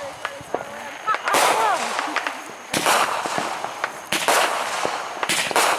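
Fireworks going off: four sharp bangs roughly a second or so apart, each trailing off briefly.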